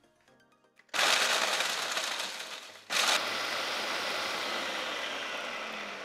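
Food processor blade running and chopping whole Oreo cookies into crumbs, in two pulses: a loud run of about two seconds, a brief stop, then a second run that slowly fades with a sinking hum toward the end.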